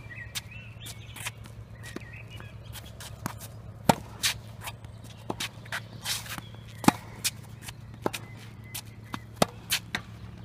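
Footsteps and shoe scuffs on a hard tennis court, with scattered sharp knocks of tennis balls bouncing and being hit, over a steady low hum.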